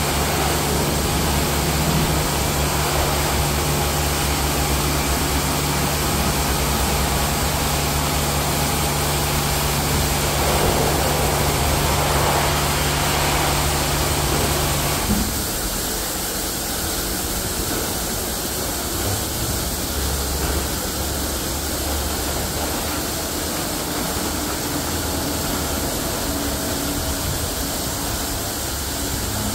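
Robowash LK101KP touchless car wash running: a steady pump hum with the hiss of water jets spraying the car. About halfway through, the hum cuts off and a softer, even spraying continues as the car is covered in foam.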